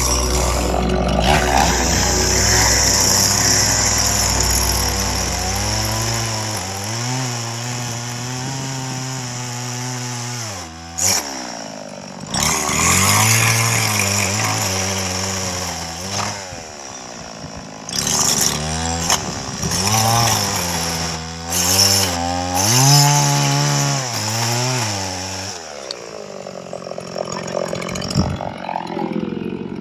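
Chainsaw cutting through a rhino's horn, its engine revving up and dropping back again and again, with short pauses between cuts.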